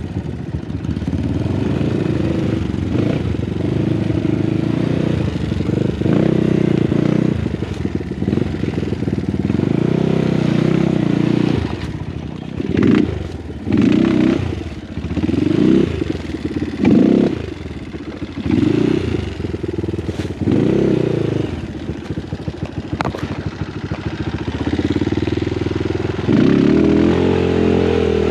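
Small single-cylinder engine of a trail-modified Honda Wave 125 motorcycle being ridden off-road. It runs steadily at first, then in the middle comes a string of short throttle bursts about a second apart, and it revs up again near the end.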